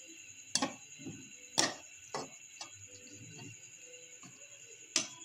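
Metal spatula knocking and scraping against a steel pan while stirring minced beef with yogurt, a handful of sharp, irregular knocks.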